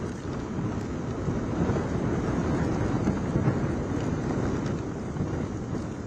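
Gusty cyclone winds buffeting the microphone with heavy rain: a steady, unbroken low-pitched rush of noise.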